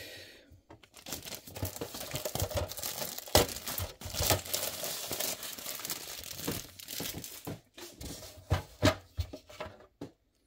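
Clear plastic protective film pulled off a white plastic display-case panel and crinkled in the hand, with a dense run of crackling. Near the end it stops and a few sharp plastic taps follow as the panels are handled.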